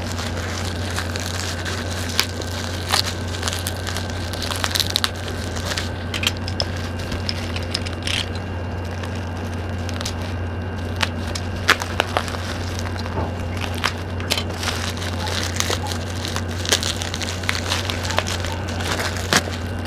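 Clear plastic and bubble wrap being torn, peeled and crinkled by hand from a boxed phone, with many sharp crackles and clicks. A steady low hum runs underneath.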